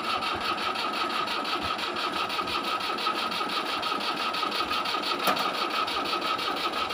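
Fiat tractor's diesel engine running steadily as it pulls a trolley loaded with soil, with a fast even chatter and a steady high whine over it.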